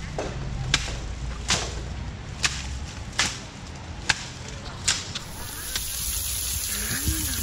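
An Asian elephant whacking bundles of leafy stalks against the ground with its trunk: six sharp slaps about a second apart. About five seconds in, this gives way to a steady hiss of water spraying over the elephant.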